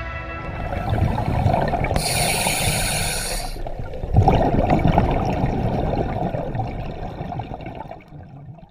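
Underwater bubbling and rushing water from a diver's exhaled air rising from a mini scuba tank's mouthpiece, with a hiss lasting about a second and a half some two seconds in and a louder burst of bubbling about four seconds in. It dies away near the end.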